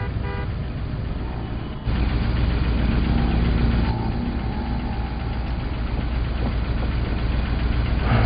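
Car engine idling steadily, a low rumble that gets louder about two seconds in.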